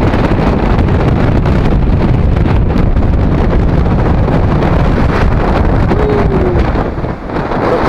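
Wind buffeting the camera's microphone: a loud, steady rumbling rush.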